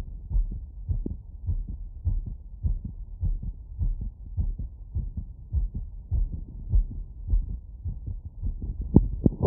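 Human heartbeat heard through a wireless stethoscope on the chest after a run: a fast, regular series of short, low thumps.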